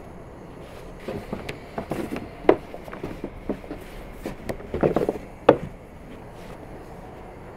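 A thin wooden rolling pin knocking and rolling against a wooden board as saj bread dough is rolled out. The knocks come irregularly for a few seconds, with two sharper ones standing out.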